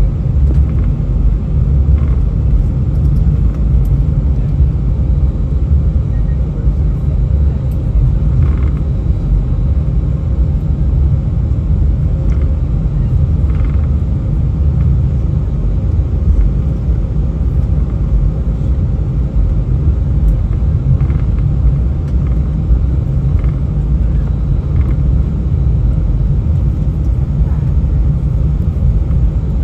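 Steady low rumble inside the cabin of a British Airways Airbus A319 taxiing: engine and airframe noise while the airliner rolls along the taxiway. A few faint brief knocks or voices sound through it now and then.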